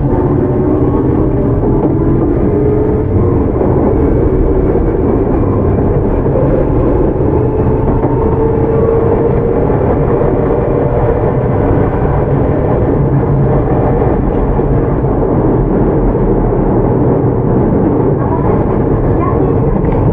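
Tokyu 9000 series commuter train with Hitachi GTO-VVVF traction control running, heard from inside the car: a steady rumble of wheels on rails, with a motor whine that rises slowly in pitch and then holds steady.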